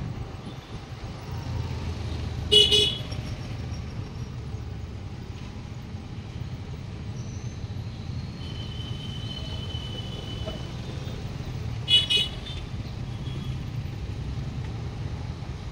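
Scooter riding in city traffic: a steady low engine and road rumble, with a vehicle horn tooting briefly twice, about two and a half seconds in and again near twelve seconds.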